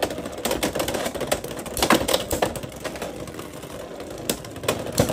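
Two Beyblade X spinning tops, Sphinx Cowl 4-80 High Taper against Phoenix Wing 5-60 Point, spinning and colliding in a plastic stadium. The hits make rapid, irregular clicking and clattering, busiest in the first half.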